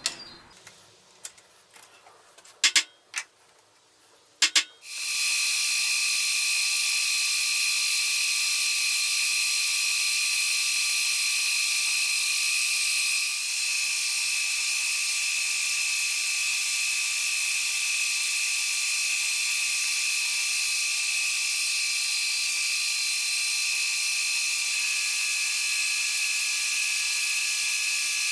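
A few sharp clicks, then about five seconds in a Deckel FP1 milling machine starts and runs steadily, its end mill cutting a small metal bar square. It gives a steady high-pitched whine over a hiss.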